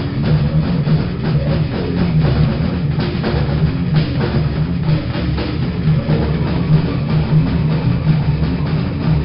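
Grindcore music played by a band: distorted electric guitar over a drum kit with heavy bass drum, dense and unbroken.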